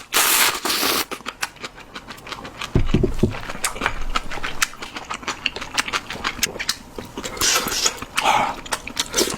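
Close-miked eating sounds of seafood ramen: a noisy slurp at the start and another near the end, with chewing and many small sharp clicks and taps between.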